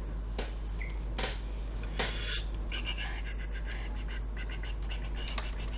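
An opened laptop's plastic chassis being handled and shifted on the bench: a few short scrapes, then a quick run of small plastic clicks and taps, over a steady low hum.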